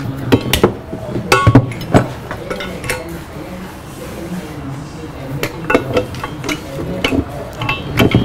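Stripped-down car engine parts, a crankshaft and its gears, clinking and knocking against each other and the metal workbench as they are handled. The knocks are irregular, and some ring briefly like struck steel.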